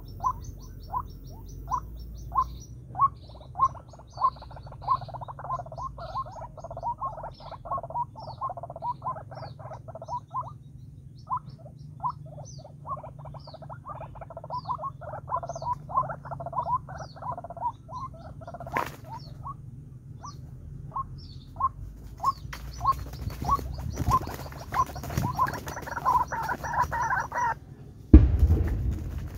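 White-breasted waterhen calling: a long run of short, repeated croaking notes, about two a second and at times faster. In the last few seconds there is rustling, then a loud thump near the end.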